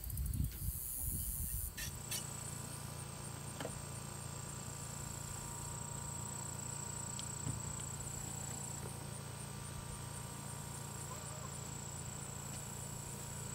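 Insects calling steadily, a continuous high buzz with faint regular pulses, over a low steady hum. The first two seconds hold uneven rustling noise before it.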